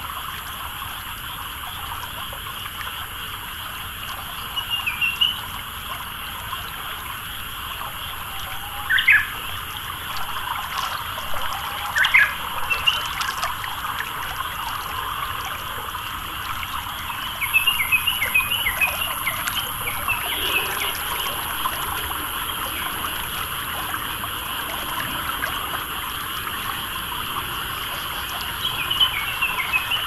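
Rice-paddy ambience: water trickling and dribbling through the paddy with a steady background chorus of frogs and insects. Small birds call over it: a short run of chirps about five seconds in, two louder sharp calls around nine and twelve seconds, a busier flurry of chirps just past halfway, and more chirps near the end.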